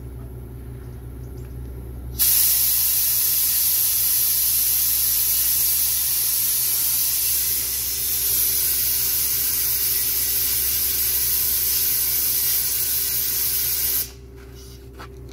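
Compressed air hissing steadily for about twelve seconds, starting suddenly a couple of seconds in and cutting off sharply near the end, as air is forced into a large tire to seat its bead, which does not seat. A low steady hum runs underneath.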